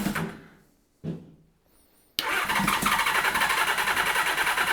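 Kawasaki Z1300's water-cooled inline-six engine being cranked on its electric starter without starting. There is a short crank about a second in, then a longer pulsing crank from about two seconds in that stops abruptly. It is not starting because of fuel starvation: a pilot jet passage in the carburettors turned out to be blocked.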